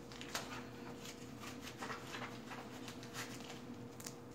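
Faint rustling and light clicks of clothing being handled as winter gear is put on, over a steady faint hum.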